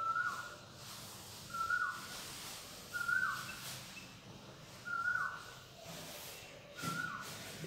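A short whistled animal call that drops in pitch at its end, repeated five times, every one and a half to two seconds.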